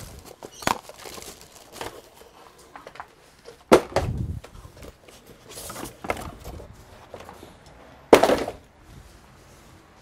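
Unboxing handling noise: plastic wrap crinkling and a cardboard laptop box and foam packing inserts being moved about. There are a few sharp knocks and thuds, the loudest about four seconds and eight seconds in.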